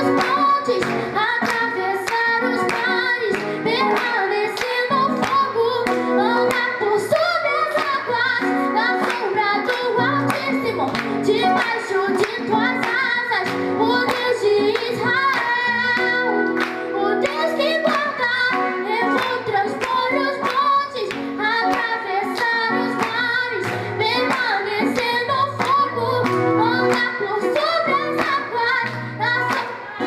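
A girl singing a Portuguese gospel worship song into a microphone, accompanied by acoustic guitar, with hands clapping a steady beat along with the music.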